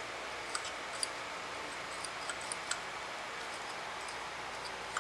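A few light, sharp clicks of small carburetor parts being handled, most of them in the first three seconds and one near the end, over a steady background hiss.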